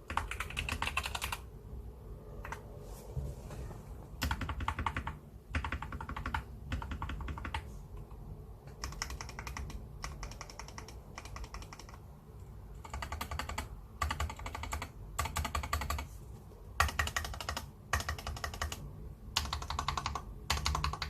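Typing on an SK61 mechanical keyboard with Gateron Optical Brown tactile switches. The keystrokes come in fast runs of one to three seconds, broken by short pauses.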